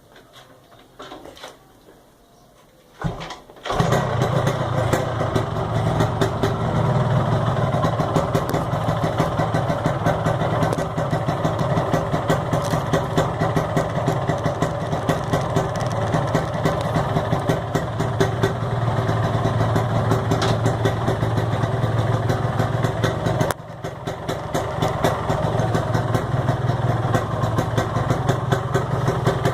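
Yamaha RX-King's two-stroke single-cylinder engine starting about four seconds in and then running steadily as it is warmed up from cold. Its level dips briefly about twenty-three seconds in and then picks back up.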